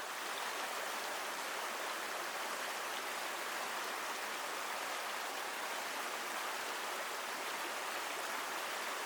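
Steady rush of flowing water, fading in at the very start.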